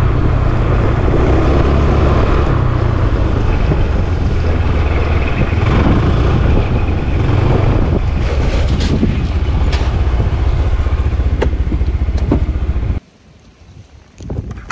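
Small motor scooter engine running as the bike rides along, a steady low drone with wind rushing over the microphone. Near the end the engine and wind noise drop away suddenly.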